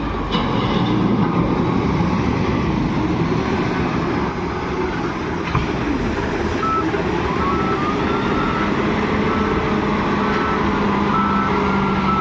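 Heavy diesel engine of a wheel loader running under work. About halfway in, a reversing alarm starts beeping, with short high beeps repeating at a steady pace.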